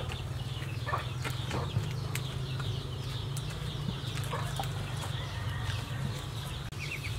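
Chickens clucking low and steadily in the background, with a few faint taps and rustles of cabbage and water spinach being handled.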